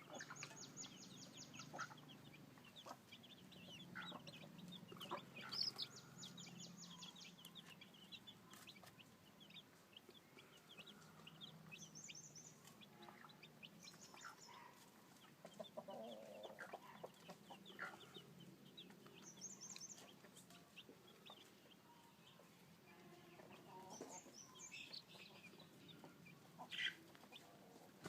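A flock of newly hatched chicks peeping over and over in short, high chirps, with a few lower clucks. A fast, very high trill comes in several times.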